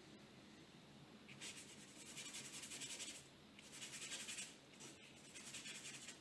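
Paintbrush scrubbing oil paint onto paper in a scumble, in three stretches of quick back-and-forth strokes, the longest first, the others about four seconds in and near the end.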